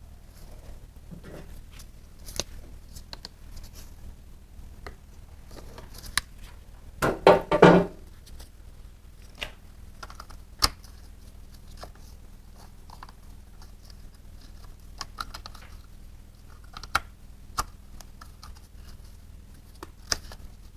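Scattered small clicks, taps and light knocks of tools and parts being handled, with one louder rattling clatter lasting about a second around seven seconds in.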